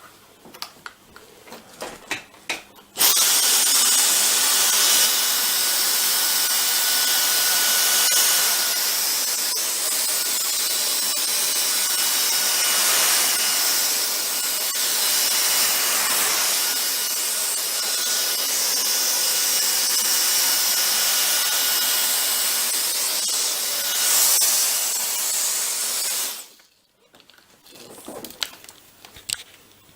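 Dyson DC44 cordless stick vacuum cleaner on its ordinary power setting, switched on about three seconds in, running steadily with a rushing hiss and a thin high whine, then switched off near the end.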